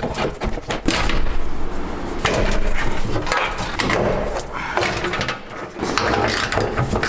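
Clattering, rustling and knocking of car wiring and interior parts being handled and pulled loose: a dense run of small knocks and rustles.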